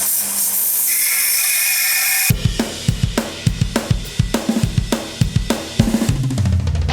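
A steady high hiss, then about two seconds in rock music comes in with a fast drum beat and bass.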